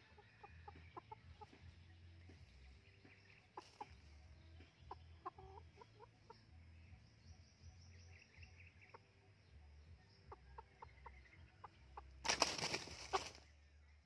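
A chicken clucking softly as it pecks around, then, about twelve seconds in, a loud burst of wing flapping and thrashing lasting about a second as a spring-pole snare catches it.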